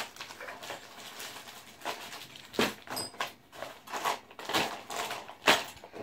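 Irregular rustling and knocks as plastic-bagged bike parts and packaging are handled, with a sharper knock near the end.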